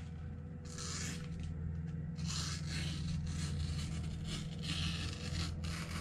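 A super sharp VG10 sheepsfoot blade of a slip joint pocket knife slicing through a sheet of printer paper: a series of short, hissy rasping strokes as the edge cuts. A steady low hum runs underneath.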